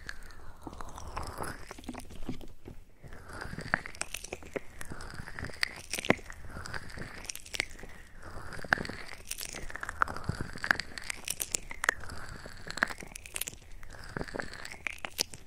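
ASMR mouth sounds close to the microphone: wet clicks and smacks, with mouth-shaped swooshes coming every second or so.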